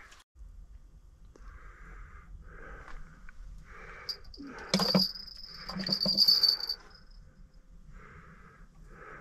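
A person breathing heavily in slow, even puffs, about one a second, congested from a cold. Midway a steady high-pitched whistle sounds for about three seconds, with two louder bursts in it.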